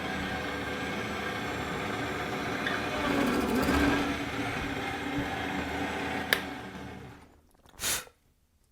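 Parkside bench pillar drill running as a bit bores into wood. About six seconds in there is a click and the motor winds down to quiet, with one short noise just before the end.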